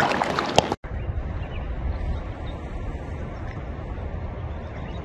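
Steady breeze on the microphone, heard as a low rumble, with faint bird chirps. It comes in abruptly under a second in, after a brief splashy stretch of water sounds from the kayak at the shoreline.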